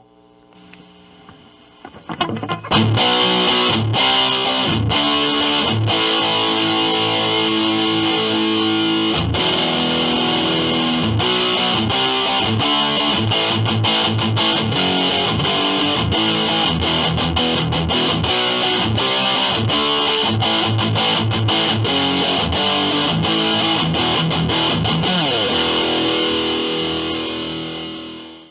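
ESP LTD EX-50 electric guitar played through a Digitech Death Metal distortion pedal. After a quiet couple of seconds it comes in with a heavily distorted, choppy riff full of short stops, then fades out near the end.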